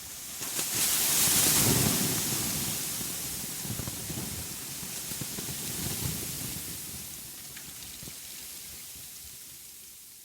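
A rushing noise with a low rumble under it swells in, is loudest a second or two in, then slowly dies away.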